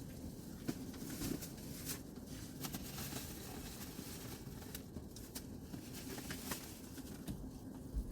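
Faint room noise with a low steady hum and scattered light clicks and rustles.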